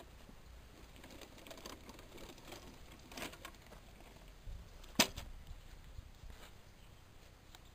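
A few faint, scattered clicks and knocks, with one sharper knock about five seconds in.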